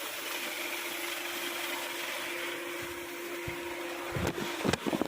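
Hyundai Sonata DN8 2.5-litre engine running steadily with a constant whine, then several sharp knocks about four seconds in.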